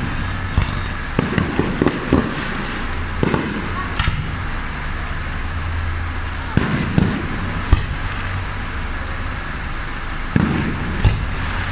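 Aerial firework shells bursting in an irregular series of sharp bangs. They come in clusters early on, around the middle and again near the end, over a steady background rumble.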